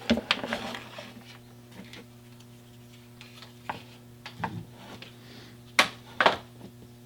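Small clicks and taps of throttle-cable distribution box parts being handled and fitted on a workbench, with two sharper clicks near the end, over a steady low hum.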